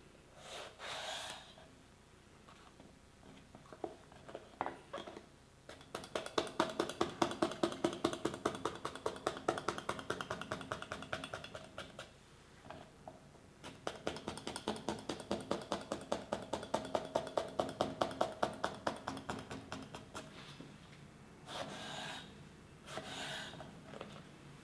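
Kitchen knife cutting an eggplant on a ginkgo-wood cutting board: a single stroke near the start, then two long runs of quick, even strokes at about six a second, each knocking lightly on the wood, and two more separate cuts near the end.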